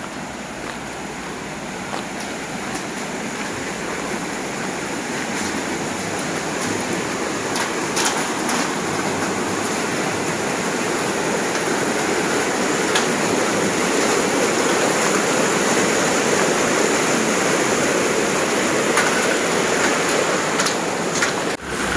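Rushing mountain stream tumbling over rocks: a steady hiss of white water that grows steadily louder, with a few faint clicks over it.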